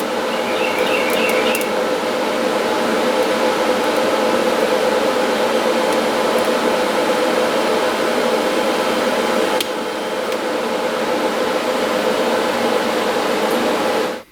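Welding arc running with a steady buzzing hiss, then cutting off suddenly at the end, with the shielding gas run out.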